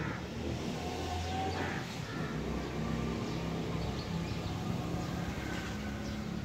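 Open-air ambience: birds call a few times over a low, steady hum of distant traffic, with one stronger swell of engine hum early on.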